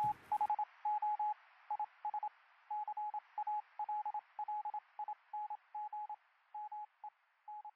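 A string of short electronic beeps on one pitch, in an irregular Morse-code-like pattern of short and longer beeps, over a faint radio-like hiss, slowly fading: a news outro sound effect.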